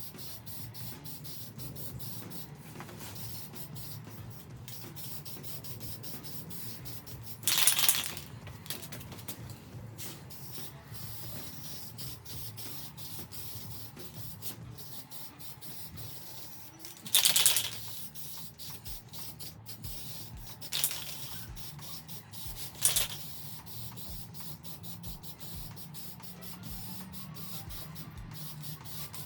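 Aerosol can of matte black spray paint hissing in four bursts. Two longer bursts come about a quarter of the way in and just past halfway, then two short ones follow close together. A faint steady hum lies underneath.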